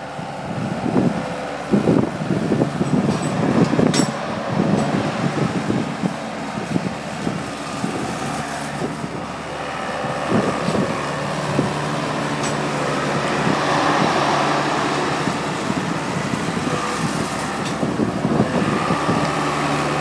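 Skid steer loader's engine running under load, with irregular clanks and knocks over the first half, then a steadier engine drone that swells a little in the middle.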